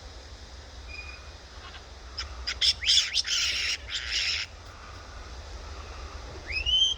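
Captive kites calling: a run of harsh, scratchy screams about two seconds in, then whistled calls that rise and fall near the end.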